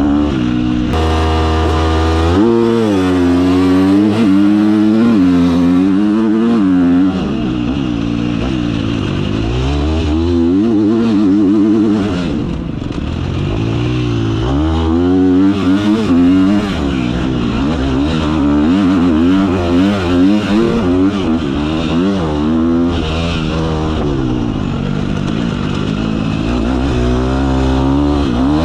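Motocross dirt bike engine heard on board, revving hard on the straights and backing off into the corners, its pitch climbing and dropping again many times.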